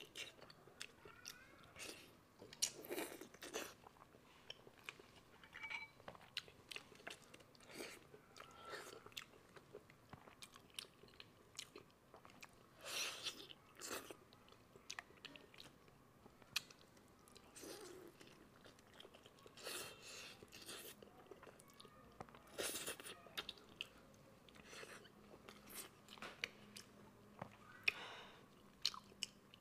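Close-miked chewing and biting of soft spicy pig brains in chili oil. Irregular mouth clicks and smacks come every second or so.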